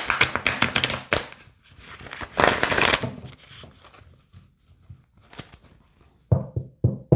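Tarot deck being riffle-shuffled: a fast run of card flicks in the first second or so, then a second short rustling cascade of cards about two and a half seconds in. Near the end the deck is knocked sharply against the table about four times.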